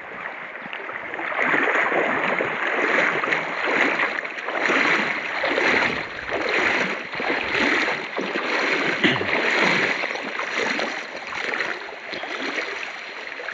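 River water swishing and splashing around legs wading through the current, in surges about once a second that ease near the end.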